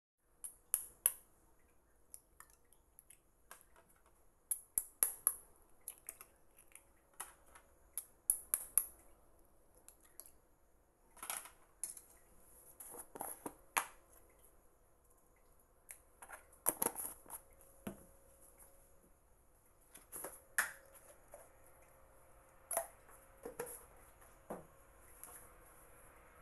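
Eggs being cracked into a ceramic bowl and the shells set down on a plate, with a metal spoon clinking in the bowl: scattered sharp taps and clicks of eggshell, china and metal.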